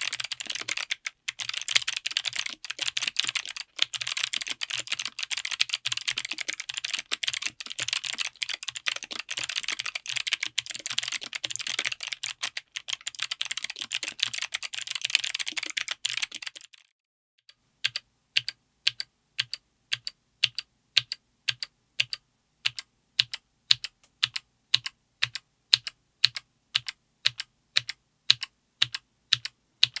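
Fast typing on a mechanical keyboard with Kailh BOX Night Firefly clicky switches, GMK ABS keycaps, an FR4 plate and an aluminum case: a dense run of sharp clicks. After a brief pause about two-thirds of the way in, single key presses follow at a steady pace of about two a second.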